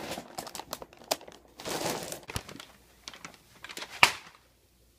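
Wendy's paper takeout bag crinkling and rustling in irregular bursts as it is grabbed and carried off, with a sharp knock about four seconds in.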